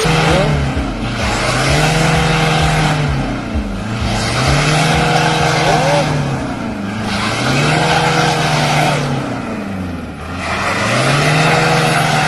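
A car engine revving hard four times, each rev climbing, holding and dropping away, as the car strains against a tow rope. The wheels spin on wet grass with each rev.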